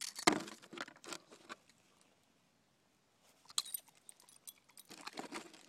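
Light crinkling and clicking from handling a broken fortune cookie and its cellophane wrapper over a foam takeout box, in a few short spells with a quiet gap in the middle.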